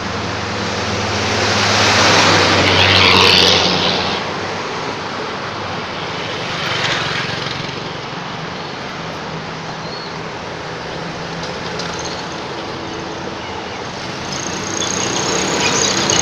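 Road traffic going by on a busy road: a steady rumble of engines and tyres that swells as vehicles pass, about two to three seconds in and again near the end, when a pickup truck drives past close by.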